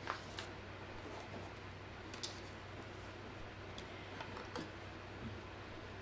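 A few faint, short clicks, scattered unevenly, over a steady low electrical hum.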